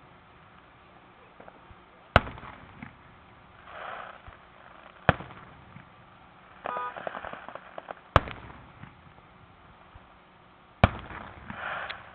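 Aerial firework shells bursting in a public display: four sharp booms about three seconds apart, each trailing off in echo, with softer sounds in between.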